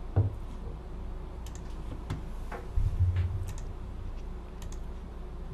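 A few scattered clicks and low thumps at a desk over a steady low hum, with the loudest thumps just after the start and again around three seconds in.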